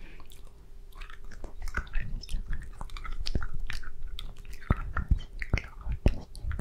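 Wet mouth sounds right at the microphone: irregular clicks and smacks of a hard candy being sucked and licked.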